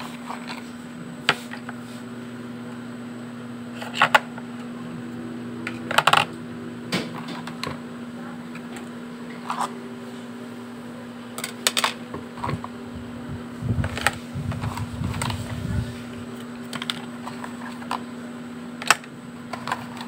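Makeup pencils, brushes and small plastic cosmetic tubes clicking and knocking as they are set into the compartments of a plastic organizer caddy: scattered sharp taps every second or few, with a few seconds of rubbing, handling noise about two-thirds of the way through, over a steady low hum.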